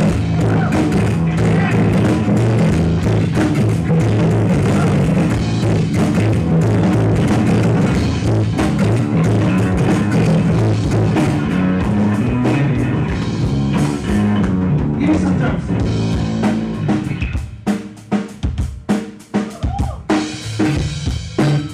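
A live band jam on electric guitar, bass guitar and drum kit, played steadily. For the last few seconds the playing breaks up into separate short hits with gaps between them.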